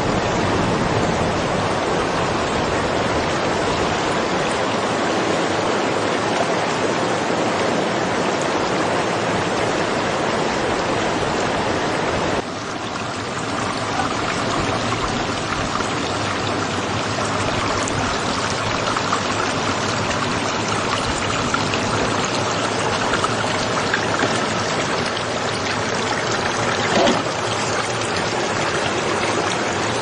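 Mountain creek water rushing steadily over rocks. It drops a little in level about twelve seconds in. Near the end there is a brief louder splash or knock.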